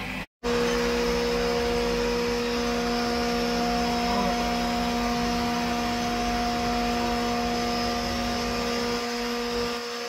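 JCB 3DX backhoe loader's diesel engine and hydraulics running steadily under load, a constant droning hum with a steady whine, heard close to the machine after a brief dropout at the very start.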